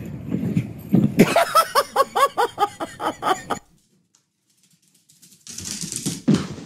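A person laughing in a quick run of about ten "ha"s, about four a second, that cuts off suddenly. After a short silence comes a burst of noise with a thump near the end.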